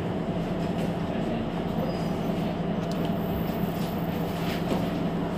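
Mercedes-Benz Citaro C2 Hybrid city bus standing at a stop with its engine running, a steady low hum with a few held tones.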